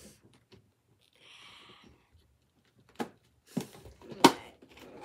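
Plastic packaging being pried and twisted open by hand: a soft rustle, then a few sharp plastic clicks and cracks, the loudest about four seconds in.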